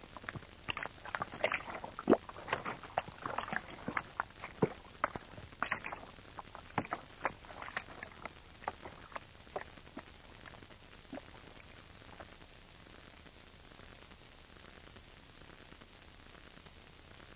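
Experimental noise recording: scattered, irregular clicks and knocks that thin out and stop about twelve seconds in, leaving only a steady hiss.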